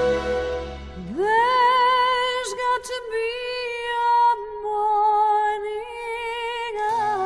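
Instrumental film-score music: a few long held notes with vibrato, one sliding up into its pitch about a second in, then moving slowly between held notes.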